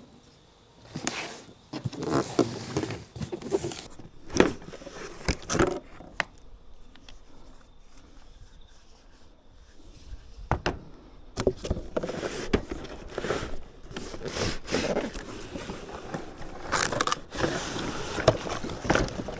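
Cardboard box being opened and packaging handled: irregular scraping, rustling and knocks, quieter for a few seconds in the middle.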